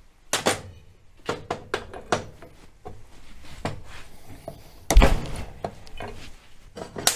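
A metal wrench clinking and knocking against an outboard's aluminium lower unit and propeller as the propeller is worked off its shaft. There are scattered sharp taps, with one heavier thump about five seconds in.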